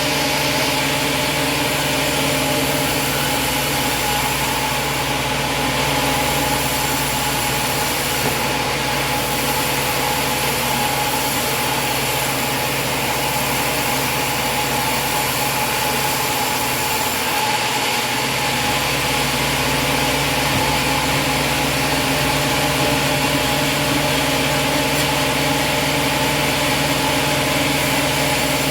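Sawmill engine running steadily at a constant speed, with no rise or fall in pitch.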